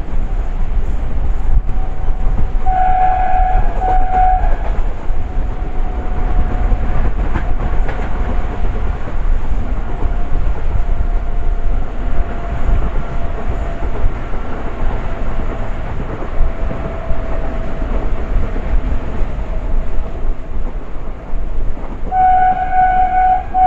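A train running with a steady loud rumble, heard from on board, while the hauling WAG-9 electric locomotive's horn sounds: one blast about three seconds in lasting under two seconds, and another near the end. In between, a fainter long tone slowly falls in pitch.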